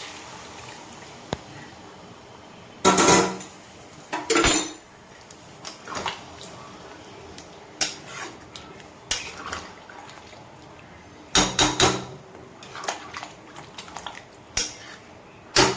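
Metal cookware clattering: a kadai and metal utensils knocking together in several short bursts, about three and four and a half seconds in, twice more around twelve seconds and again near the end, over a faint steady hiss.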